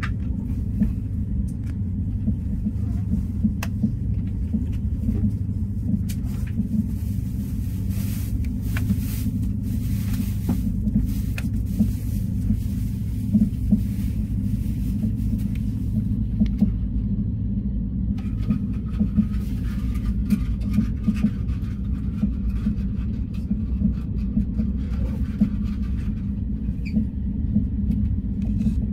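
Passenger train running, heard from inside the carriage: a steady low rumble of wheels on rail, with faint scattered clicks and rattles.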